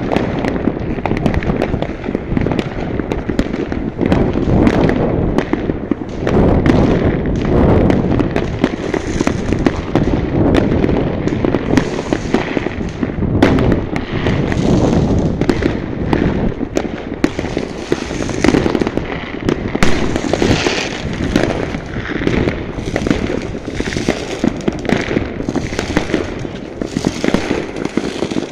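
New Year's fireworks going off all over the town at once: a dense, continuous barrage of overlapping bangs and crackling, with no let-up.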